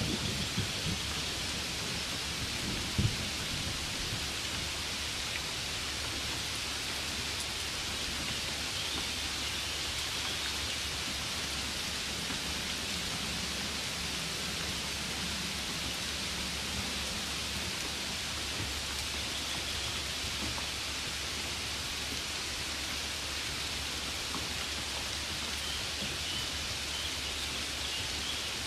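Steady rain falling, an even hiss with some low rumble underneath, and a single brief knock about three seconds in.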